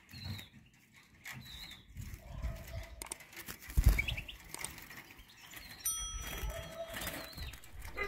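A European goldfinch released from an open hand and flying off: a brief flutter of wings with a loud bump of handling noise about four seconds in. A few short, high bird chirps come and go around it.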